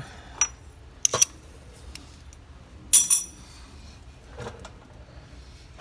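Metal hand tools clinking: a spanner wrench being taken off and set down, a few sharp metallic clinks, the loudest and most ringing one about three seconds in.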